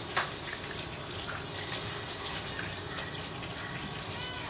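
A steady rushing hiss, like running water, with a sharp click just after the start, a few lighter ticks, and a brief high squeak near the end.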